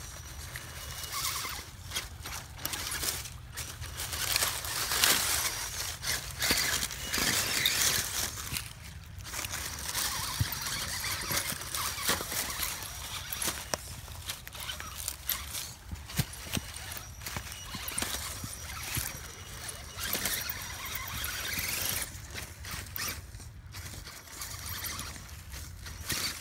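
Electric RC rock crawler, an Axial Wraith, crawling over rocks and dry leaves: its motor and drivetrain whining in spurts under rustling, crackling leaves and tyres scraping on stone, with a few brief pauses.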